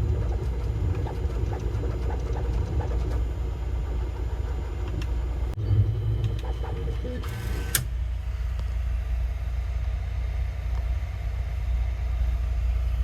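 FDM 3D printer running: a steady low rumble with scattered light clicks, and a short hissing burst a little past halfway.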